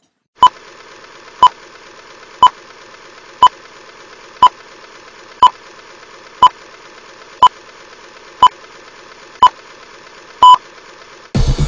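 Film-leader countdown beeps: short identical beeps once a second, eleven in all, the last one longer, over a steady hiss. Music starts right at the end.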